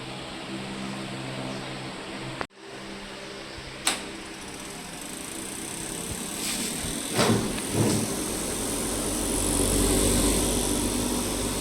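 Cotton candy machine's electric spinner motor running with a steady hum, with a sharp click about four seconds in and a couple of knocks around the middle. Toward the end it grows louder and more rushing.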